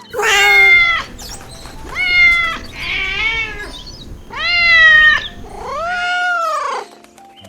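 A kitten meowing loudly and repeatedly, about five high-pitched meows in a row. The last meow is longer and drawn out, rising and then falling in pitch.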